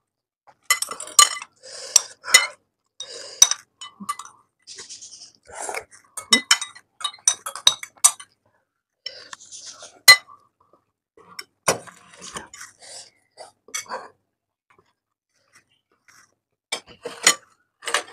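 Cutlery clinking and scraping against bowls of spicy ramen noodles while eating, in irregular sharp clinks with softer eating noises between and a short lull near the end.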